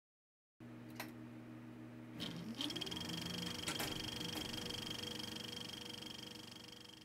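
Mechanical whirring: a low hum, then a few clicks and a whine rising in pitch as a small motor spins up, settling into a steady high whir that slowly fades.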